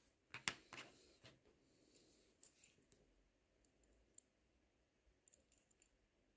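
Faint clicks and light metallic taps of small watchmaker's tools working on a Miyota 8215 watch movement: a quick cluster of clicks in the first second, then scattered single ticks.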